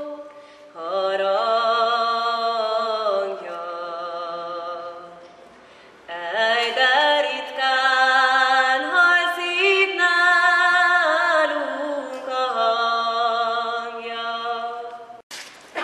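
A woman singing solo and unaccompanied, with long held notes and vibrato. There is a short break in the singing about five to six seconds in.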